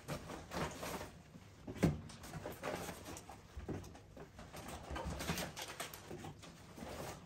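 Groceries being unpacked: a woven shopping bag rustling and milk cartons and packages knocking as they are set down on a kitchen counter, with one sharper knock about two seconds in.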